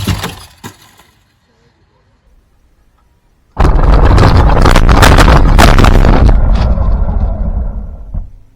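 RC car rumbling and rattling down a slide: a sudden, very loud rush of rumble and clatter starting a few seconds in, lasting about five seconds and tapering off near the end.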